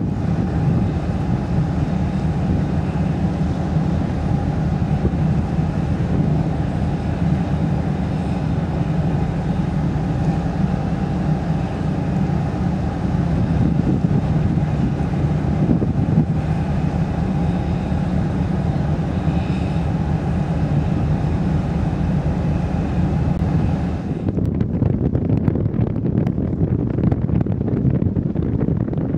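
Steady drone of a large car ferry's engines and machinery, with wind rumbling on the microphone. About 24 seconds in the drone's higher part drops away suddenly, leaving mostly the low wind rumble.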